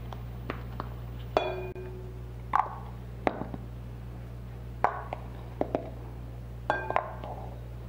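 Red plastic measuring cup knocking against a glass flour jar and glass mixing bowl as flour is scooped and tipped in: a string of irregular sharp clinks and taps, two of them with a short glassy ring. A steady low hum runs underneath.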